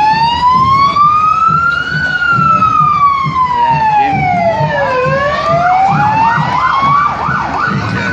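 Electronic siren of a State Emergency Service ute on a slow wail: its pitch rises for about two seconds, falls for about three, then climbs again. A faster warbling yelp sounds over it for the last couple of seconds.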